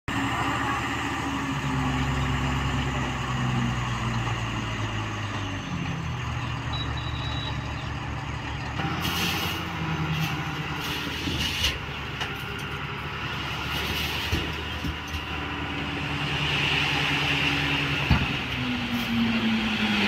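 Tipper dump truck's diesel engine running at raised revs to drive the hydraulic hoist as the body lifts and tips its load of stone dust, the engine pitch stepping up and down. A few short rushes of the load sliding and spilling out come about nine to twelve seconds in.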